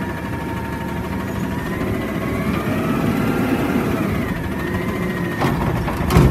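Front-loader garbage truck's diesel engine running, with a whine that rises and then falls in pitch in the middle. Two sharp knocks come near the end, the second the loudest.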